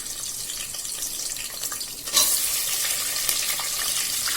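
Sliced onions and green chillies sizzling in hot oil in a pressure cooker; the sizzle jumps louder about two seconds in.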